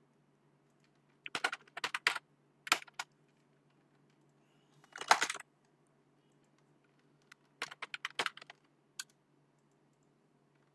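Computer keyboard typing in short bursts of keystrokes with pauses between them, the densest and loudest burst about five seconds in. A faint steady low hum lies underneath.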